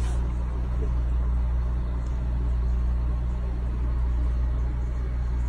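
Steady low hum, unchanging throughout.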